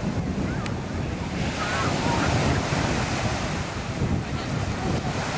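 Small waves washing in the shallows, with wind buffeting the microphone in a low, steady rumble. The hiss of the water grows louder about a second and a half in.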